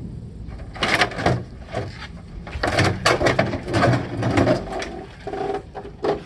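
Irregular knocks, clatters and scrapes of hard parts being handled and pulled loose while a CRT television is being taken apart.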